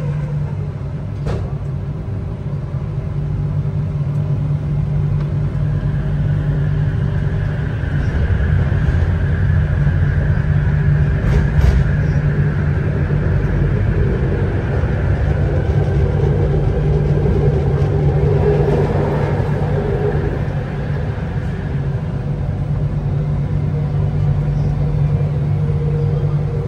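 Metro train running along an elevated track, heard from inside the front car: a steady low hum and rumble, with a higher motor whine that comes up about six seconds in and fades away after about twenty seconds, and a couple of brief clicks.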